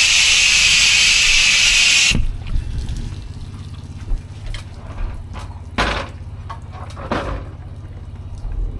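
High-pressure water spray from a Honda-engined pressure washer hissing, then cutting off suddenly about two seconds in. After that the engine keeps running with a steady low hum, and a few scattered knocks are heard.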